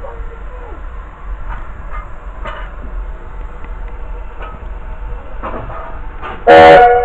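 Low steady rumble of a narrow-gauge train running, with faint knocks. About six and a half seconds in comes one short, loud blast of the locomotive's whistle.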